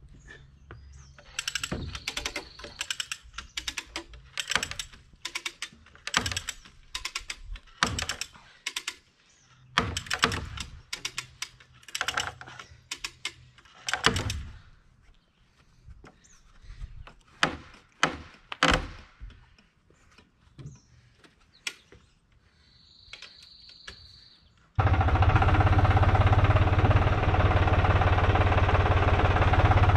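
A string of irregular sharp knocks and clicks, then a loud, steady engine drone that starts abruptly about 25 seconds in.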